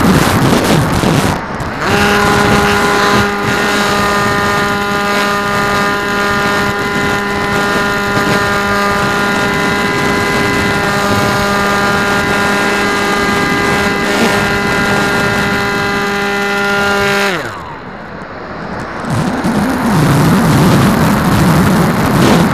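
RC airplane's motor and propeller running with a steady drone from about two seconds in, then throttled off near the end, dropping quickly in pitch. Wind buffets the onboard microphone before the motor comes on and again after it stops.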